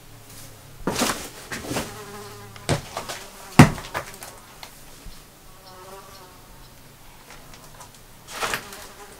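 Footsteps crunching and knocking on broken glass and scattered boards on a floor, a handful of sharp crunches with the loudest a little past a third of the way through. A fly buzzes faintly throughout.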